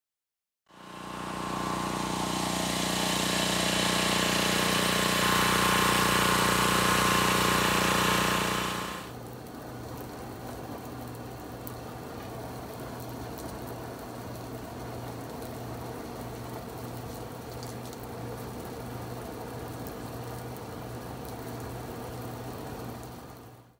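Insulation blowing machine blowing loose-fill insulation out of its hose: a steady rushing hiss over the blower's hum. About eight seconds in it drops to a quieter, lower hum with much less hiss.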